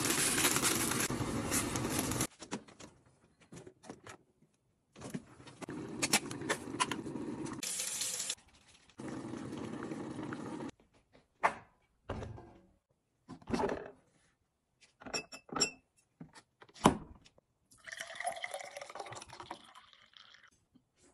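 Short kitchen sounds cut one after another: plastic food packaging crinkling, sharp clinks of a pot and utensils, and near the end juice poured from a glass bottle into a glass.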